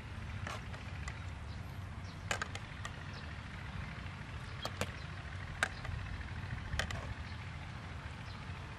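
Metal ladle stirring cabbage and fish in a steel pot, giving a handful of sharp, irregular clinks against the pot, over a steady low rumble.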